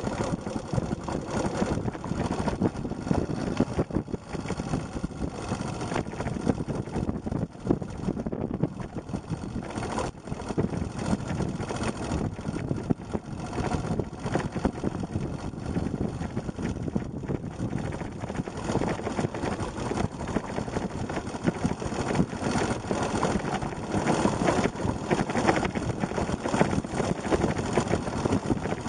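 Yamaha XT250's air-cooled single-cylinder four-stroke engine running steadily as the bike rides along a gravel track.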